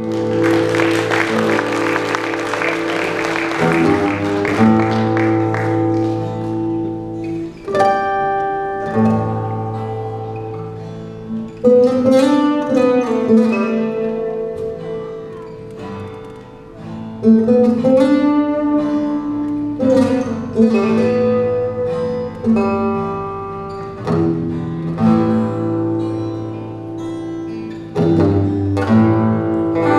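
Acoustic guitars playing an instrumental passage of picked notes and chords, with a few notes sliding in pitch.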